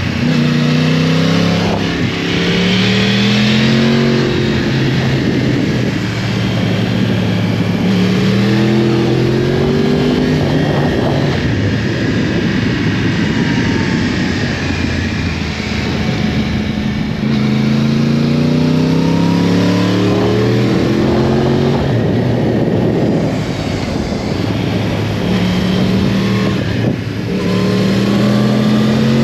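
2012 Yamaha YZF-R1's crossplane inline-four engine under hard riding, its pitch climbing in several revving surges that step at each gear change and fall back between them, over a steady rush of wind.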